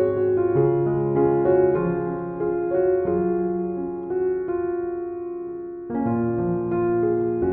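Soft background piano music: slow held notes and chords, with a new chord struck at the start and again about six seconds in.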